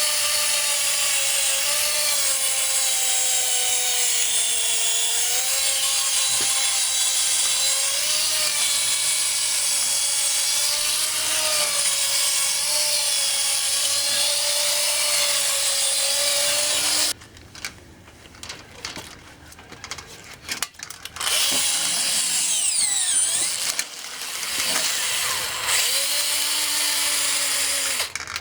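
Cordless drill spinning a metal drain snake inside a sewer pipe to break up a grease blockage: a steady motor whine that wavers a little in pitch, cuts off about two-thirds through, then restarts in short stop-start runs and runs longer again near the end.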